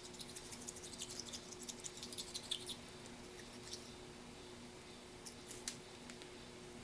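A Bunn coffee brewer's spray head being shaken to knock loose lime scale out of it: a faint, quick rattle of light clicks for about three seconds, then a few scattered clicks.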